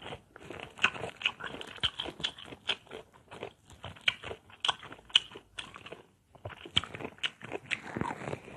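Close-up crunching and chewing of firm, unripe mango slices: an irregular run of crisp bites and wet mouth clicks, with a short pause about six seconds in.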